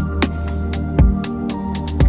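Electronic intro music with a steady beat of deep kick drums and sharp percussion hits over sustained synth tones.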